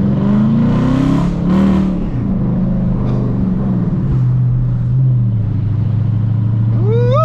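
Dodge R/T's V8 engine pulling up through the revs at the start, then holding a steady low drone at cruise, with a loud rush of noise about a second and a half in.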